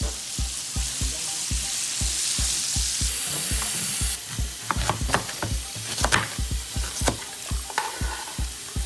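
Food sizzling in hot frying oil over a steady low drum beat, about three thumps a second. The sizzle's hiss is strongest about two to four seconds in, and sharp clicks of utensils against the pan follow in the second half.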